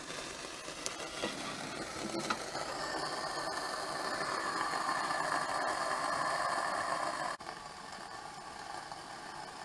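A few light metallic clinks as a tray of burning solid-fuel tablets is slid under a small model steam boiler. Then a steady hiss builds for several seconds and cuts off abruptly near the end.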